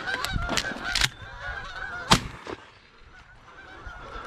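A flock of geese honking overhead, with one loud shotgun shot about two seconds in.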